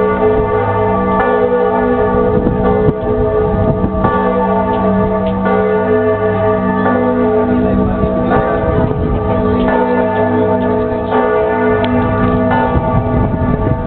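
Bells of Giotto's Campanile, Florence, ringing together. Their strokes fall irregularly and overlap, over a steady hum from their ringing.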